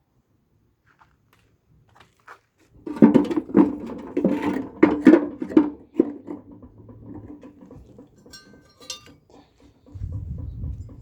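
Irregular clattering and knocking of hard, metallic-sounding objects being handled, loudest for a few seconds starting about three seconds in, then fainter rattles and clicks and a low rumble near the end.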